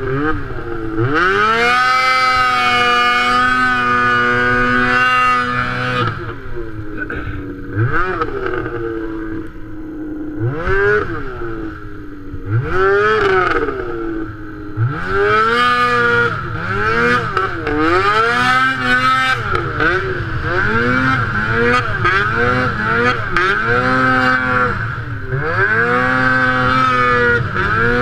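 Snowmobile engine working in deep powder snow, held at a steady high rev for several seconds about a second in, then revving up and dropping back over and over as the throttle is worked.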